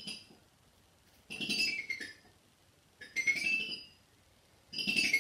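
A beater swept quickly along a xylophone's bars in glissandos, one quick run of notes about every second and a half, some sweeping up in pitch and some down.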